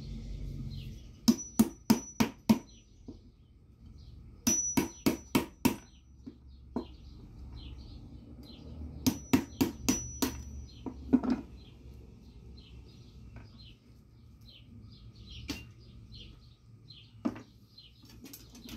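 Claw hammer striking the spine of a knife to chop cast lead fishing sinkers off their sprue on a wooden stump: three quick runs of about five sharp metallic taps each, with a short ring after the strikes, then a few single taps. Birds chirp faintly in the background.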